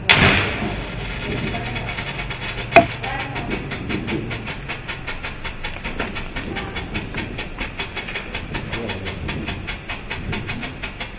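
Raccoon RA8036 1.4G ground-effect strobing-flame firework burning: a steady hissing spray broken by a fast, even rattle of strobe pops, several a second. It starts with a burst, and one sharper bang comes about three seconds in.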